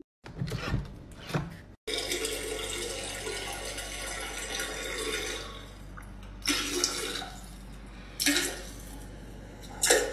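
Steady trickle of liquid splashing into a toilet as a Yorkshire terrier pees on a toilet-training seat, starting about two seconds in, with a few brief louder sounds toward the end.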